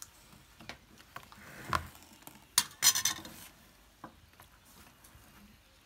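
A metal spoon scraping and clinking against a serving bowl of sautéed vegetables and against plates, a handful of light clinks with a small clatter about three seconds in.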